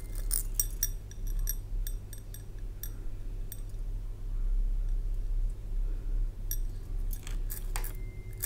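Loose beads clicking against a glass bowl and against each other as fingers rummage through them, in scattered runs of small clicks during the first few seconds and again near the end.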